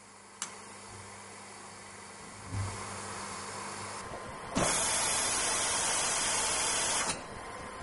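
Hot gas rework system letting out a loud rush of air or gas for about two and a half seconds, starting and stopping abruptly. Before it, a sharp click and a dull knock from the machine's stage.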